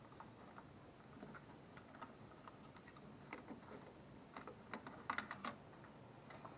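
Faint, scattered clicks and light rattles of a timing light's clamps and leads being unclipped and handled, with a cluster of quick clicks about five seconds in.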